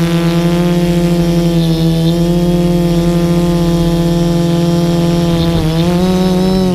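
Multirotor drone's electric motors and propellers buzzing, heard from the camera on board. The buzz is loud and steady, then briefly dips and steps up in pitch near the end as the motors change speed.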